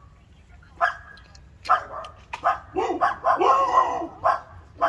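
A dog barking repeatedly in short, sharp barks, with one longer, wavering yelp a little past halfway.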